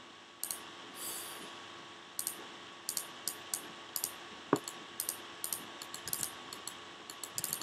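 Scattered clicks of a computer mouse and keyboard, about fifteen short sharp clicks spaced roughly half a second apart, over a faint steady hum.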